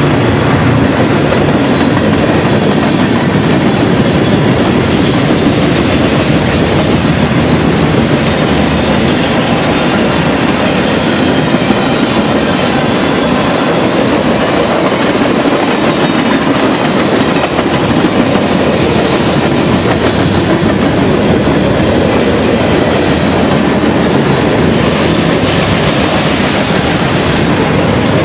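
Freight cars of a BNSF manifest train rolling past, a steady loud rumble of steel wheels on rail with a clickety-clack over the rail joints.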